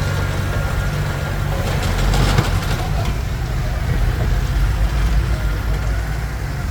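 Komatsu D21P bulldozer's diesel engine running steadily, with a brief clatter about two seconds in.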